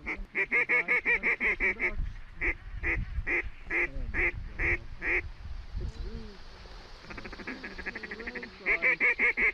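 A run of loud, evenly spaced waterfowl calls, quick at first and then slower. About seven seconds in comes a rapid chatter, and near the end another quick loud run. A low rumble sits under the middle stretch.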